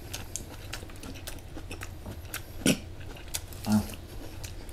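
A person chewing and eating, with scattered light mouth clicks and two brief voiced murmurs a few seconds in.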